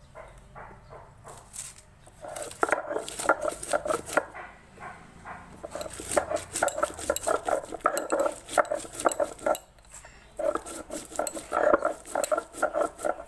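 Stone roller grinding dry whole spices and chillies on a carved stone slab (shil-nora): fast, rough back-and-forth grinding strokes with stone knocking on stone. The strokes start about two seconds in and stop briefly about two-thirds of the way through before resuming.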